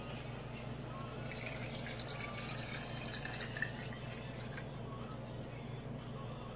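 Beef broth poured from a glass bowl into a pot of cooked onions, splashing and gurgling for about four seconds, with a single sharp clink partway through.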